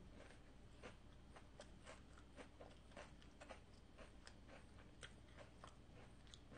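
Faint chewing of a wafer cone, with small crisp crunches coming irregularly, a few each second.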